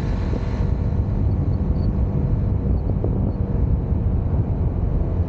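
Honda CBR motorcycle engine running steadily while cruising, with wind buffeting the microphone.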